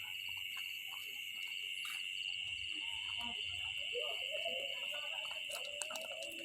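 Steady, continuous drone of an insect chorus, with a faster pulsing trill riding above it.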